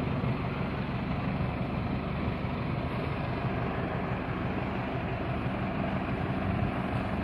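Farm tractor's diesel engine running steadily with a low, even drone.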